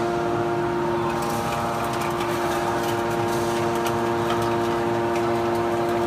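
Hydraulic metal baler idling: its pump and electric motor give a steady hum with several constant tones, and light irregular ticks sound over it.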